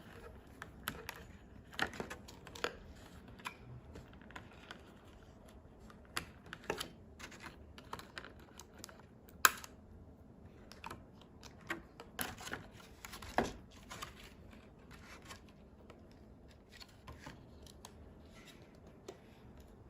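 Irregular small clicks, taps and light rustles of a doll's packaging being handled and opened, with sharper clicks about nine and a half and thirteen and a half seconds in.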